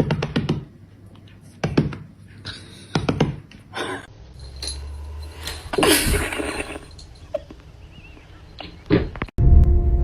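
A series of separate thumps and knocks, with a longer burst of noise about six seconds in; music begins near the end.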